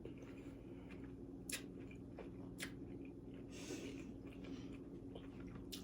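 Faint chewing of vegetables close to the microphone, with a few soft mouth clicks over a steady low hum.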